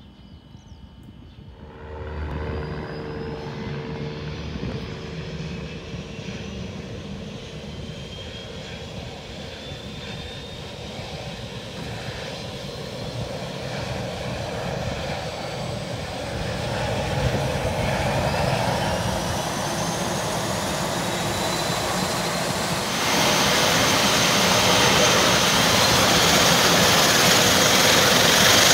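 De Havilland Canada Dash 8-300 turboprop starting an engine. A hum with steady low tones comes on about two seconds in, then a turbine whine rises slowly in pitch as the engine spools up, and a much louder rush of engine and propeller noise comes in about 23 seconds in.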